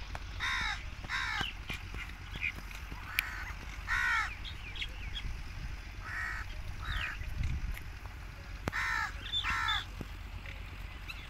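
Crows cawing, harsh calls in short runs of one to three every few seconds. Fainter high chirps of small birds come between the caws, over a steady low rumble.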